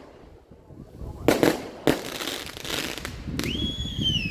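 Fireworks going off: two sharp bangs less than a second apart, followed by crackling. Near the end a long, high shrill sound starts and carries on.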